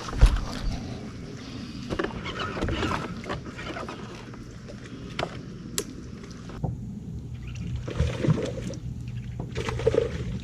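Handling noise on a fishing boat: scattered knocks and clicks over a steady low hum.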